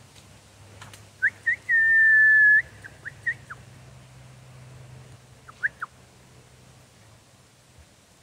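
A person whistling to call dogs: two quick chirps, one long steady high note, a few short falling chirps, then two more quick chirps a couple of seconds later.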